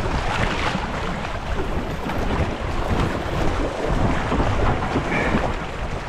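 High-water river rapids rushing steadily, with wind buffeting the microphone.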